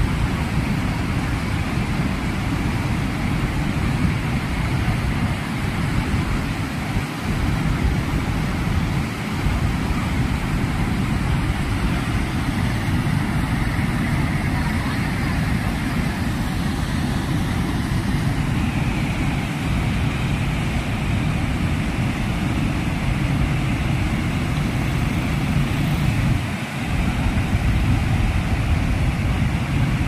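Steady roar of a river in spate: white water rushing through rapids and pouring over a broad waterfall.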